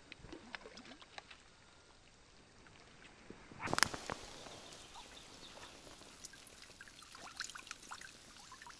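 Faint trickling and dripping of water around a keepnet hanging in the water, with small ticks. One short sharp sound comes about four seconds in.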